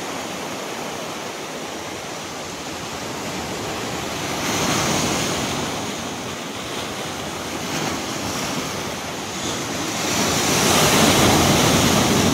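Sea surf breaking and washing over the boulders of a rock seawall, a steady wash that swells louder twice, about five seconds in and again near the end.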